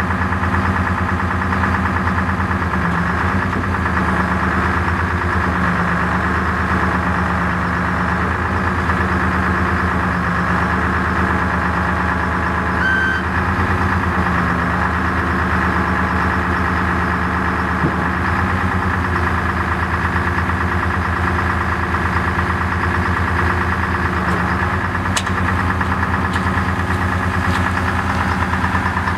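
The 1979 P&H 430 ATC truck crane's chassis engine idling steadily while it drives the power steering hydraulic circuit that works the outriggers.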